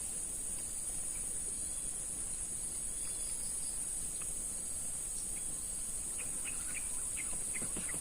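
Steady, high-pitched drone of insects such as crickets or cicadas, with a few short faint bird chirps near the end.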